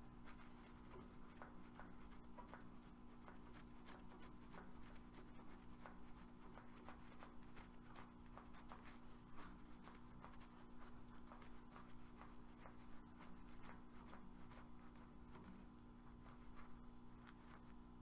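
Near silence: a faint steady hum, with light scattered ticks and scrapes from a gloved hand turning a valve core removal tool on an air conditioner's service port to screw the Schrader valve core back in.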